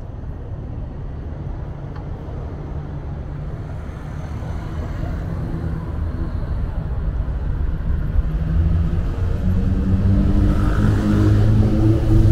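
City road traffic: a steady low rumble of engines and tyres, with one vehicle's engine drawing close and getting louder over the last few seconds.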